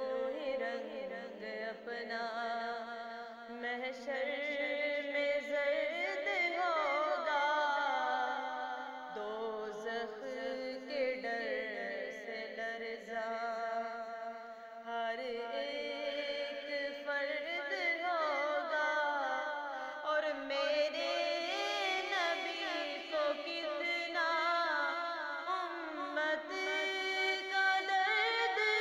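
Urdu devotional song in naat style, sung with long, ornamented, wavering notes over steady held notes lower down.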